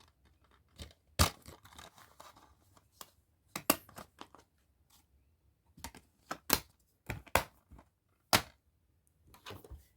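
Plastic DVD cases being handled: a scattering of sharp clicks and snaps, about five loud ones, with light rustling in between.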